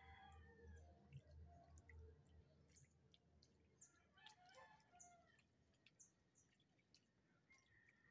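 Faint rooster crowing, once at the start and again about four seconds in, with small high chirps in between.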